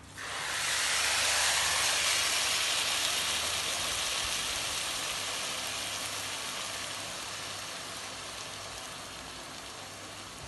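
Water poured into a hot pan of rice fried in oil and ghee sets off a loud sizzling hiss that starts suddenly and slowly dies down.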